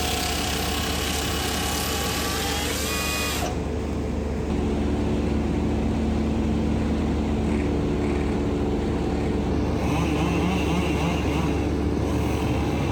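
Heavy machine engine running steadily, with a loud rushing noise over it for the first few seconds that stops about three and a half seconds in; the engine drone then becomes a little louder.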